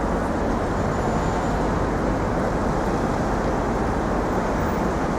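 Steady city street traffic noise: a constant hum of passing vehicles with no single event standing out.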